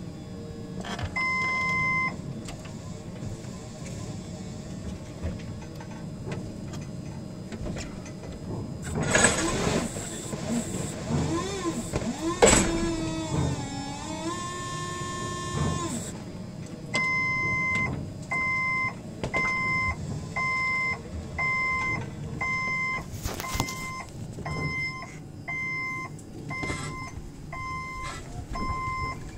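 Forklift warning beeper sounding a steady electronic beep about once a second through the second half, with a single beep about a second in. In the middle there is a rising whine that levels off and holds for a few seconds.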